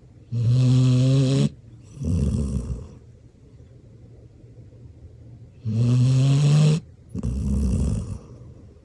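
Black Labrador retriever snoring in deep sleep: two snores about five seconds apart. Each is a loud buzzing, pitched breath of about a second, followed by a shorter, rougher breath.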